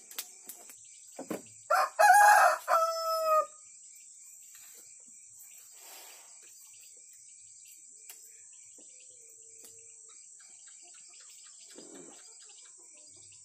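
A rooster crows once, about two seconds in. The crow lasts under two seconds, and its last note is held and falls slightly. Insects drone steadily and high-pitched throughout.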